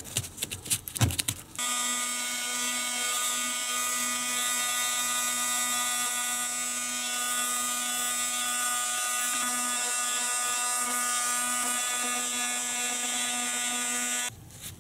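A few clicks and rustles of a triangular 80-grit sanding sheet being handled. Then an electric detail sander starts about a second and a half in and runs at a steady pitch, its triangular pad sanding the rusty steel pliers. It stops suddenly just before the end.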